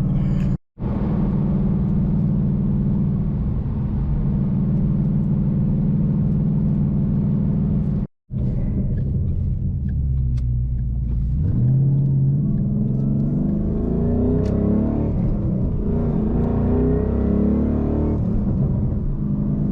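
2012 Ford Boss 302 Mustang's 5.0-litre V8 cruising at a steady pitch, heard from inside the car, with two brief dropouts where the sound cuts out. About halfway through the engine note climbs and keeps changing as the car accelerates.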